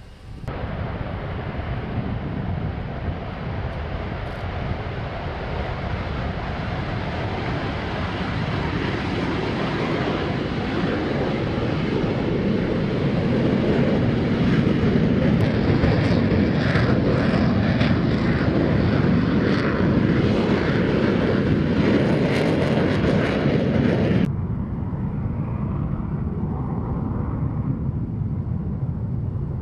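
EA-6B Prowler twin J52 turbojet engines at takeoff power, a loud jet noise that builds as an aircraft rolls down the runway and lifts off. About 24 seconds in, it drops suddenly to quieter jet engine noise from Prowlers on the runway.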